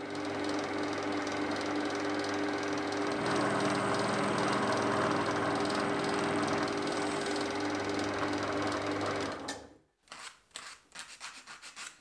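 Scheppach DP18 Vario drill press running with a steady hum, its bit drilling into a small aluminium angle piece from about three seconds in; the sound stops abruptly about ten seconds in. Then a quick series of scraping strokes follows as the drilled aluminium piece is rubbed on a sanding block.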